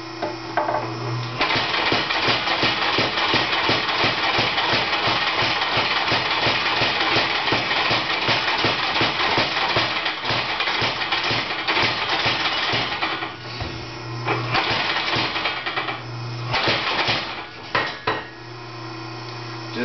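Homemade electric power hammer: its motor hums while the hammer head pounds a block of mahogany in rapid, even blows. The hammering runs for about eleven seconds, stops briefly, then comes in two shorter runs with the motor idling in between and again at the end.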